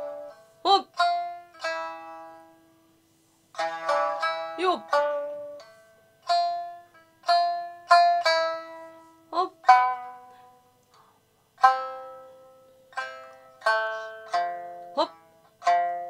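Short kouta shamisen tuned in the high 8-hon key, plucked with the fingers and playing an accompaniment with no singing: separate notes that ring and fade, in phrases with short pauses, one of them near silent about three seconds in. A few short vocal calls (kakegoe) come between phrases.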